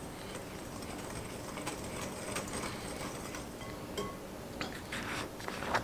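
Faint clinks and short scraping sounds of a utensil against a mixing bowl as dry batter ingredients are added, over a low steady room hum.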